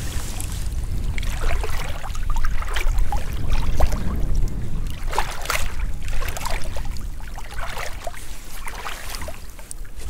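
Shallow seawater sloshing and splashing in small, irregular bursts around a person wading and reaching into it, over a steady low rumble.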